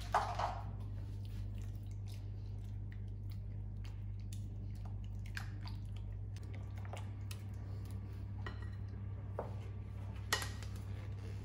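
Silicone spatula stirring and scraping a thick ricotta-and-egg batter in a glass mixing bowl: soft squelching with scattered light taps against the glass, and a couple of louder knocks near the start and near the end. A steady low hum lies underneath.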